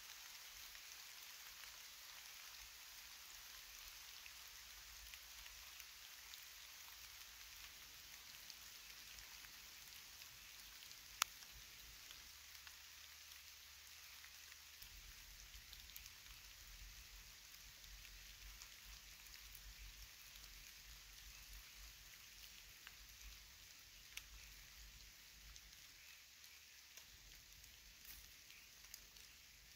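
Near silence: a faint, steady hiss of forest background with scattered small ticks and one sharp click about eleven seconds in.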